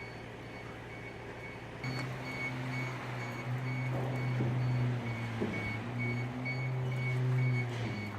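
Electric high-tip dumper running with a steady low motor hum that steps up louder about two seconds in, while its warning beeper sounds over and over. A few light knocks come through in the middle.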